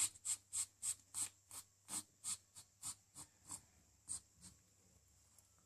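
Ferret making a quick, even run of short, hissy sounds, about three a second, that thins out and stops about four and a half seconds in.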